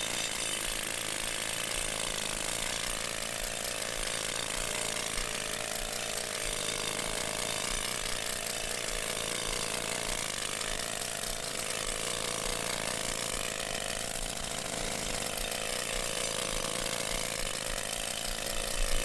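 Pneumatic rock hammer chattering steadily as it chips into asphalt pavement, a fast unbroken rattle of blows, hammering out a corner of a loop-detector saw cut.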